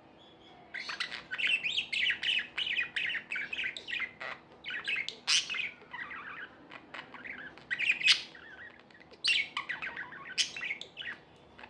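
Budgerigars chattering and warbling: a rapid, busy run of chirps starting about a second in, broken by a few sharper, louder calls in the second half.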